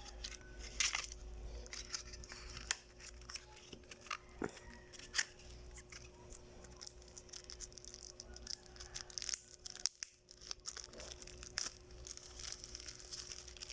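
Product packaging being handled and opened: irregular short tearing and rustling sounds with scattered clicks.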